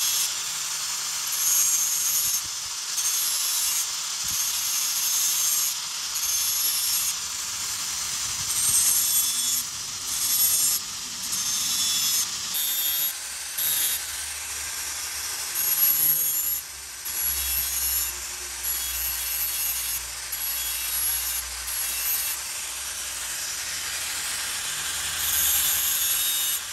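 Electric angle grinder with an abrasive disc grinding along the teeth of a steel saw blade, a high-pitched grinding hiss in repeated short passes that swell and fall with each stroke.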